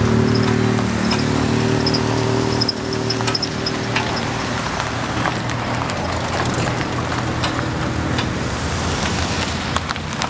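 Car engines running as vehicles drive slowly past on a dirt road: a steady engine hum, loudest for the first two and a half seconds and then dropping in level, over a constant outdoor noise with scattered small clicks.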